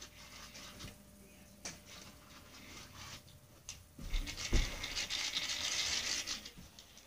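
Electronic spinning cat-teaser ball toy, handled on the carpet: after a thump about four seconds in, a dense, fast scratchy whirring sets in and runs for about two and a half seconds before fading.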